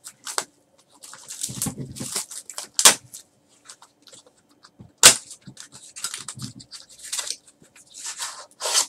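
Foil wrappers of Panini Select basketball card packs crinkling and tearing as the packs are ripped open and handled, a string of irregular crackles with a few sharp snaps.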